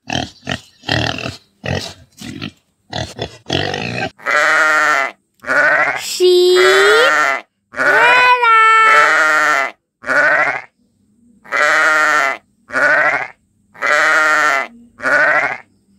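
Pig grunts, short and irregular, for the first few seconds. From about four seconds in, sheep bleat about ten times in a row, each bleat loud and wavering.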